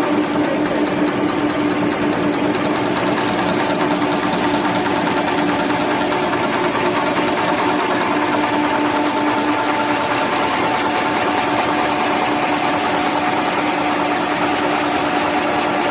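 Napkin tissue converting machine, a two-colour printing and napkin-folding line, running at speed: a steady, fast mechanical rattle with a steady hum under it.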